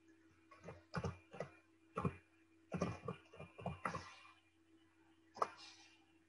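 Typing on a computer keyboard: a run of quick keystrokes over about four seconds, then one more click a little after five seconds, over a faint steady electrical hum.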